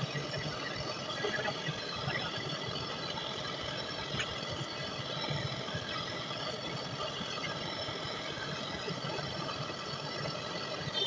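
A running machine's steady hum, with several faint constant whining tones and light rattles over it.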